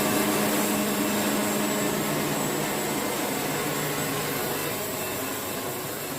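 Portable band sawmill running steadily: a constant engine hum with a hiss over it, fading slowly.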